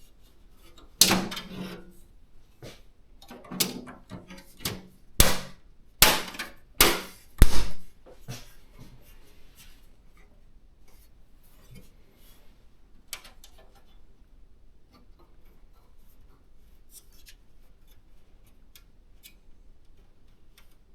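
Computer parts being handled and fitted by hand: a run of sharp clicks and knocks of hard plastic and metal during the first eight seconds, the loudest around six to eight seconds in, then only light taps and rubbing.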